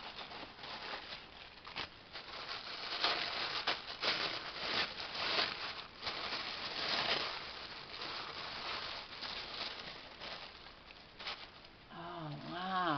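Paper rustling and crinkling in irregular bursts as a gift is unwrapped by hand, busiest in the first half.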